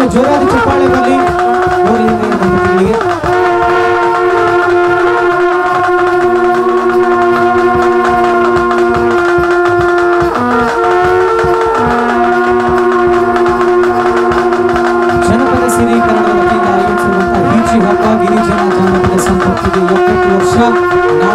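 Indian instrumental music: a steady drone under long held wind-instrument notes that shift pitch every few seconds, with a short break about ten seconds in.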